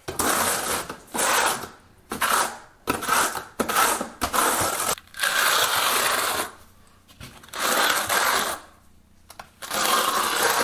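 Notched steel trowel scraping and combing tile mortar into ridges on the floor, in a series of scraping strokes, each a second or so long, with short pauses between them.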